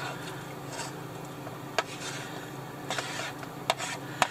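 A wooden spatula scrapes shredded chicken off a plate into a pot, with a few sharp clicks of wood against the plate and pot rim over a steady low hum.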